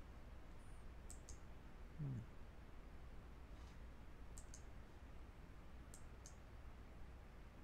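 Computer mouse button clicks: three quick press-and-release pairs, spaced a second or more apart, over a faint steady low hum. A brief low sound falling in pitch comes about two seconds in.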